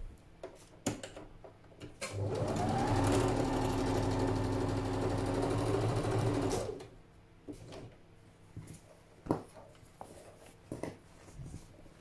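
Electric sewing machine stitching a straight seam: the motor speeds up about two seconds in, runs steadily for about four and a half seconds, then stops. A few small clicks and knocks come before and after.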